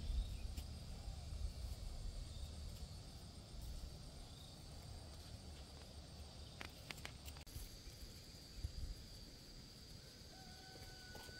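Faint outdoor ambience: a steady high-pitched insect drone over a low rumble. A few sharp clicks come about seven seconds in, and near the end a long faint call steps up in pitch and then falls away.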